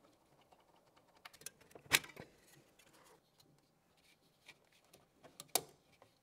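Small clicks and taps of hardware being handled inside a PC case as the graphics card is unseated and lifted out, with a sharp click about two seconds in and another about five and a half seconds in.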